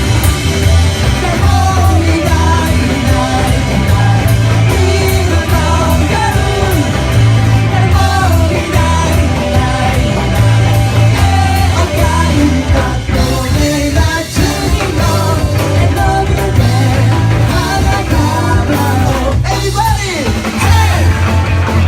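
A rock band playing live and loud (drums, bass and guitar), with a voice singing over it.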